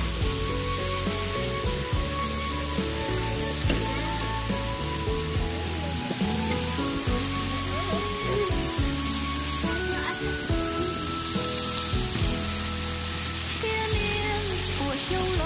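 Backstrap steaks frying in oil in a square grill pan: a steady sizzling hiss. Background music with held notes plays underneath.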